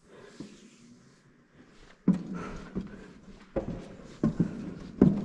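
Footsteps: a run of heavy, evenly spaced steps, about one every 0.7 seconds, starting about two seconds in.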